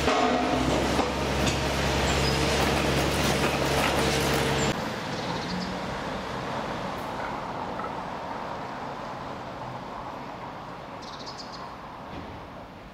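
A motor vehicle's engine running steadily with a low hum, cutting off abruptly about five seconds in. Then quieter street ambience follows, with a few faint high chirps near the end.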